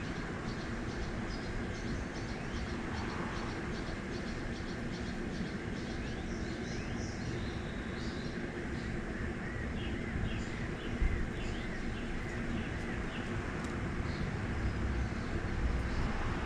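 Steady outdoor background of distant traffic rumble, with small birds chirping repeatedly over it; a low rumble swells near the end.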